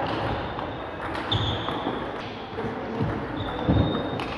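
Table tennis ball tapping back and forth between rackets and the table during a rally, echoing in a large hall, with the faint taps of other games behind.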